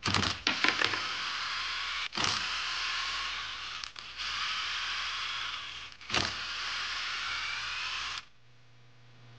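Milwaukee Fuel cordless driver spinning out the clutch spring bolts of a Yamaha YZ250 two-stroke engine, one bolt after another. It makes a steady motor whine in four runs of about two seconds each, and each run starts with a brief clatter as a bolt breaks loose. The whine stops about eight seconds in.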